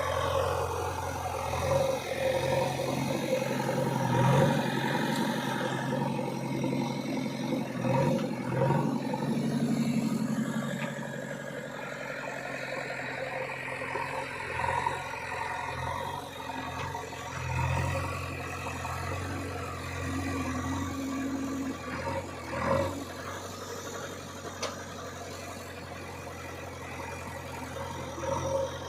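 JCB 3DX backhoe loader's diesel engine running at work, revving up and easing off in repeated swells, with a few dull knocks and thumps along the way.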